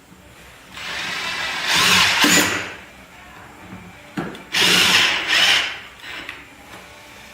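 Power drill/driver running in two bursts, the first about two seconds long starting about a second in, the second shorter near the middle, as parts are fastened during reassembly of a generator.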